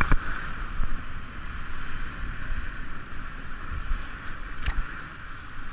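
Creek whitewater rushing and churning through a rapid, a steady roar of water, with two short knocks, one just after the start and one near the end.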